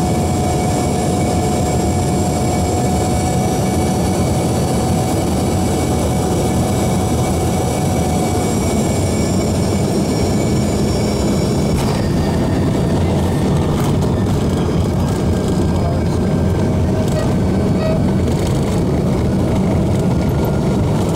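Cabin noise of an Embraer ERJ-145 on landing approach: a steady rush of airflow with the whine of its rear-mounted Rolls-Royce AE 3007 turbofans, the whine sliding slightly lower as thrust comes back. A sharp knock sounds about twelve seconds in.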